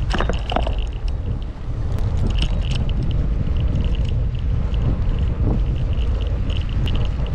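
Wind rumbling on the microphone of a moving bicycle, over road and tyre noise, with short high chirps coming and going.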